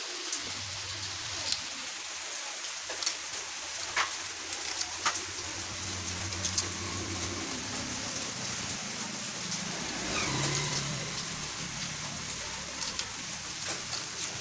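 Scattered small metal clicks and taps as bolts are set by hand into a motorcycle engine's crankcase, over a steady hiss and a low hum.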